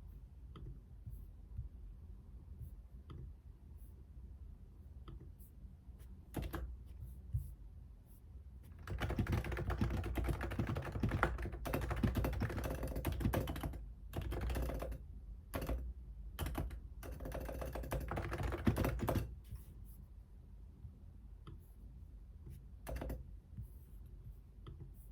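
Typing on a computer keyboard: a few scattered keystrokes, then two fast runs of continuous typing in the middle, a short pause between them, then a few scattered keystrokes again.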